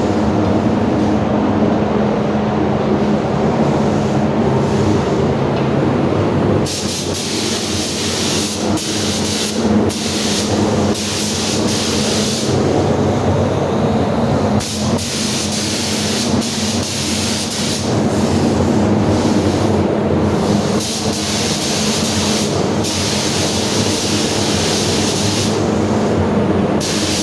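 Paint spray gun hissing in repeated passes of a few seconds each, starting about seven seconds in, over a steady machine hum.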